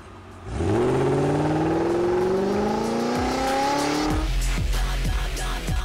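A car engine revs up, its pitch climbing steadily for about three and a half seconds, then music with a heavy bass beat takes over about four seconds in.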